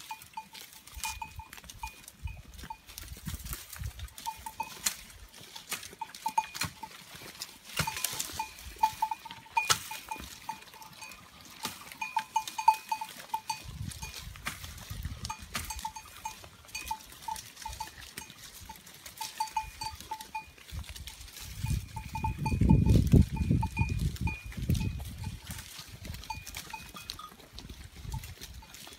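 Sheep bells clinking irregularly as a flock of sheep moves and feeds, mixed with sharp snapping and rustling of shrub twigs and leaves being browsed. A louder low rumble comes in about three quarters of the way through.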